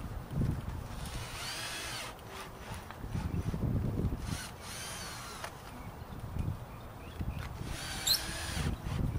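Cordless drill run in three short bursts, its motor whine rising and falling with each squeeze of the trigger; the middle burst is the longest.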